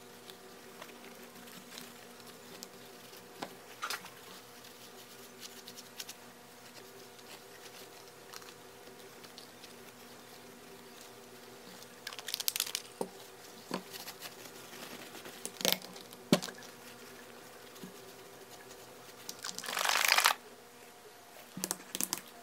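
Hand-handling noise over a steady faint buzzing hum: clicks and knocks as bottles and a cloth are picked up and set down on a rubber work mat, several short clicks in the second half, and near the end a rustle lasting about a second, the loudest sound, as a nitrile glove is pulled on.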